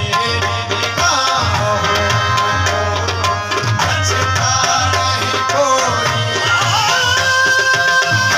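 Qawwali music: tabla keeping a steady rhythmic beat under a sliding melodic line.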